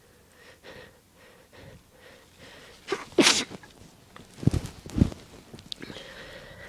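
A person sneezes once, loudly, about three seconds in, after a few faint breaths; the sneeze is an induced one. About a second later come two short, low bursts.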